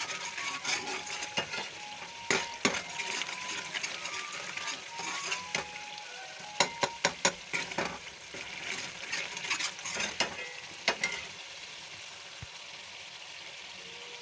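Spice masala frying in oil in a pot, sizzling, while a steel ladle stirs it and knocks against the pot in sharp clinks, a quick cluster of them a little past the middle. The sizzle dies down over the last few seconds.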